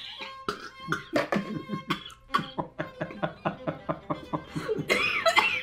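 A woman gagging and retching into a plastic bucket: a rapid, irregular run of short choking heaves, with a wavering moan near the end. She is reacting to the taste and smell of the fish pâté she is trying to swallow.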